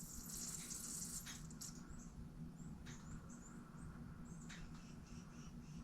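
Faint steady hum of the car's electric fuel pump running, with a few light clicks and short, faint high squeaks. The pump is leaking fuel around its top seal.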